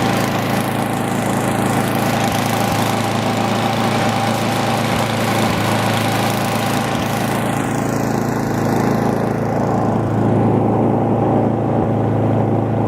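Small petrol engine of a snow-clearing machine running steadily, getting a little louder about ten seconds in.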